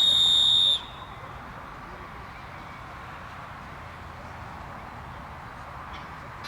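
A single steady whistle blast, a little under a second long, at the start, the kind a judge blows to start or end an exercise in a Mondioring trial. After it, only steady outdoor background.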